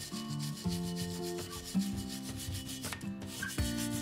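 Stiff brush scrubbing a wet bronze casting in quick back-and-forth strokes, bristles rasping over the metal, with soft background music.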